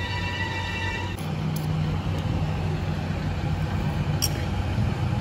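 Motor vehicle engine running near the highway, a steady low hum, with a brief high squeal in the first second.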